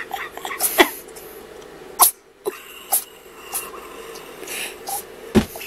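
A kitten sneezing several times in a row, short sharp sneezes a second or more apart, set off by having her nose rubbed.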